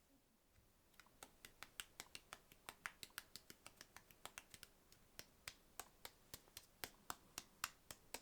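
Light, quick taps on a smartphone touchscreen, like typing, coming about four or five a second and slightly irregular, starting about a second in.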